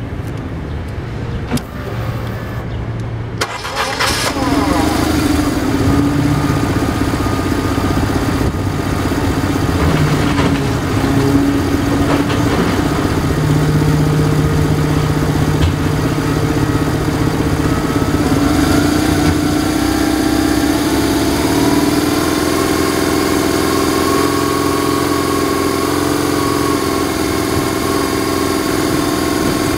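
BMW R1100GS's boxer twin starting about four seconds in and idling steadily. From about eighteen seconds in its revs rise slowly, then hold at a steady higher speed.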